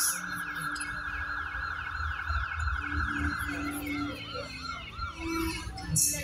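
Siren wail in quick rising-and-falling swoops over a steady high tone. The tone stops a little past halfway, slower and lower swoops follow, and a sudden loud burst of noise comes at the very end.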